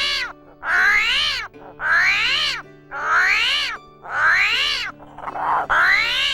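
Animal call played as the armadillo's voice: a run of about six high calls, each rising and then falling in pitch, roughly one a second, over soft background music.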